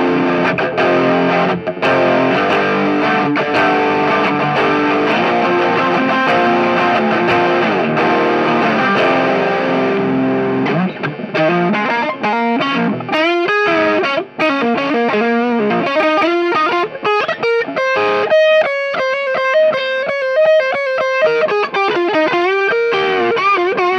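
Electric Telecaster guitar played through a Soldano SLO 30 Mini amp head on its clean sound, driven by a Boss OS-2 overdrive pedal in front of the amp. It plays sustained overdriven chords for about the first ten seconds, then single-note riffs and lead lines.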